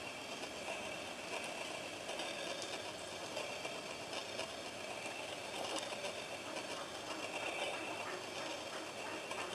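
Steady background hiss and rumble with scattered faint clicks.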